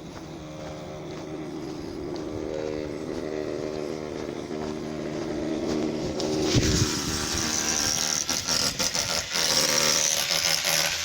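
A motor runs with a steady hum. About six and a half seconds in, a power tool starts up with a high, noisy whir that runs in short starts and stops, as when drilling or cutting during a furnace intake and exhaust installation.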